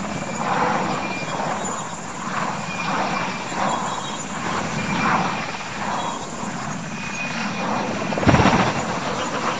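Military helicopter running with the rhythmic beat of its rotor blades, about one and a half beats a second. A little after eight seconds in, a loud crash as it rolls over and the spinning rotor blades strike the ground and break apart.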